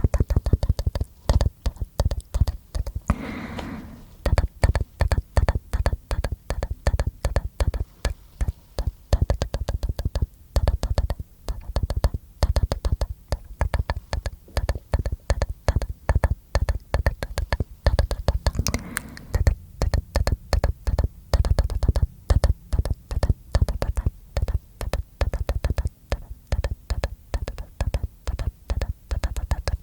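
ASMR mouth sounds made close to a sensitive microphone: rapid, irregular wet clicks and smacks of the tongue and lips, with a short voiced sound twice.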